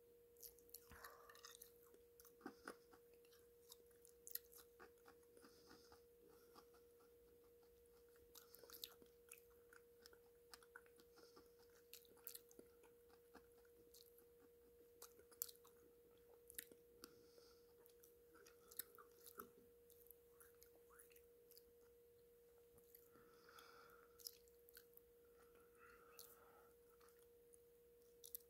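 Faint, wet mouth clicks and lip smacks, scattered irregularly, from someone eating a paste of crushed baked clay pot, over a steady faint tone.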